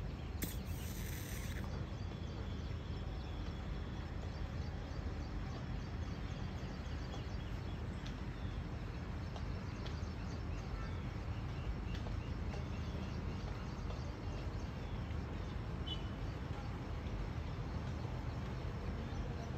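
Steady outdoor background noise with a low rumble, and faint bird chirps now and then. A brief hiss comes about half a second in.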